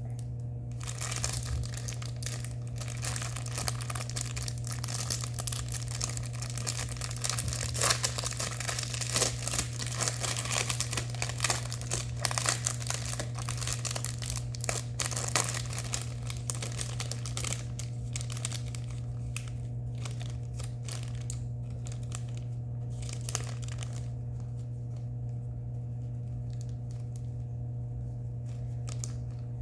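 Small plastic bags of diamond painting drills crinkling as they are handled and sorted one after another, dense for most of the time and thinning to occasional rustles near the end. A steady low hum runs underneath.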